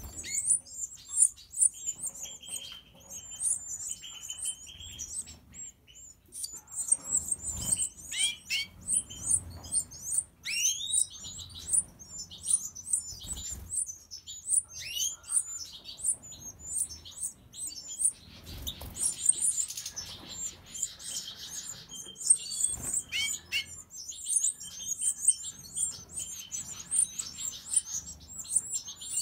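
Goldfinches (Carduelis carduelis major) calling: a dense run of short, high-pitched cheeps, several a second, with a few lower rising calls scattered through.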